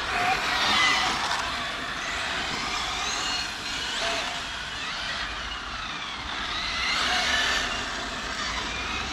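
Brushless electric RC cars driven hard: several motor whines overlap, their pitch rising and falling again and again as the cars speed up and slow down, over a steady hiss.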